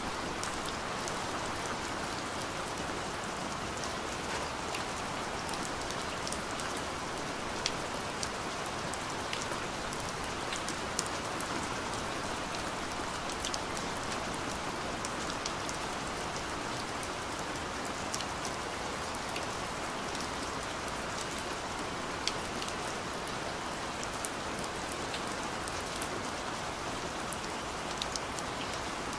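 Steady rain falling, with scattered sharp ticks of single drops over the even wash.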